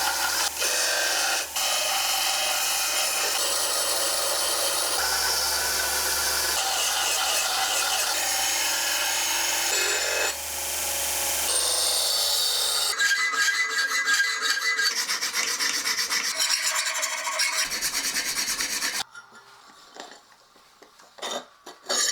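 Steel cleaver tang being filed to fit a bolster: a loud, steady rasping. Just over halfway through, it turns into a choppier run of separate file strokes. It stops suddenly near the end, leaving a few light clicks.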